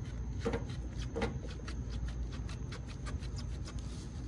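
Rubber coolant hose being twisted and worked off the thermostat housing outlet: a quick run of small creaks and clicks, with two louder squeaks about half a second and a second and a quarter in, over a steady low hum.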